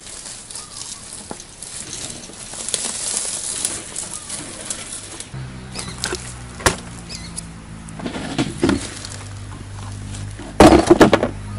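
Footsteps and a hand cart rustling through dry fallen leaves, then plastic garden gear being unloaded and set down: a sharp knock as a plastic stool goes down, and, loudest, a clatter about ten and a half seconds in as a plastic basin with a basket is put on the ground. Faint background music comes in about halfway.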